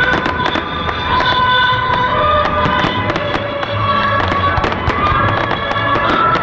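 Fireworks bursting and crackling, with many sharp cracks in quick succession, over loud instrumental music accompanying the display.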